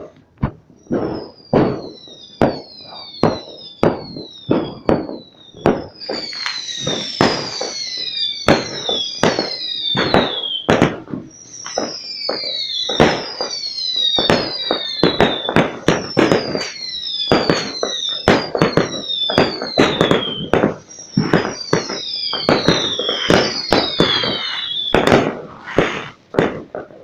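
Fireworks going off in a long, irregular string of loud bangs and crackles. High whistles that fall in pitch repeat over them until shortly before the end.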